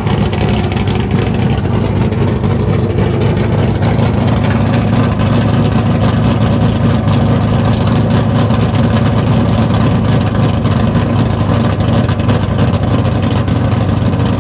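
Small-block Chevrolet V8 with a radical cam, idling rough and steady.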